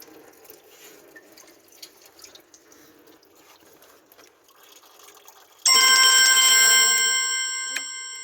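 A sudden metallic strike near the end that rings on with several steady, bell-like tones, fading over about three seconds, like a metal tool or part knocked or dropped on metal.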